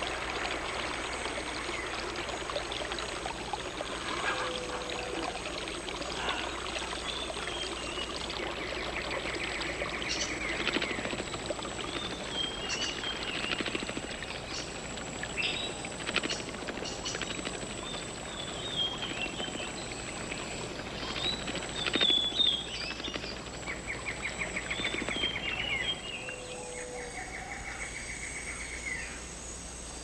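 Rain forest ambience: a stream running steadily, with birds chirping and whistling over it. Near the end the water sound drops away and two short, rapid trills are heard.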